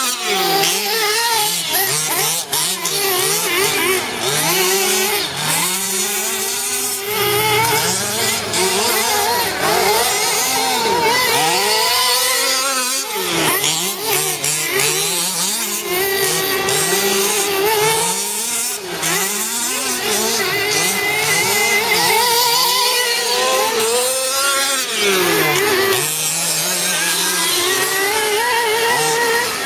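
Several nitro RC off-road buggies racing, their small two-stroke glow engines whining together. Each engine's pitch rises and falls over and over as it revs up and backs off.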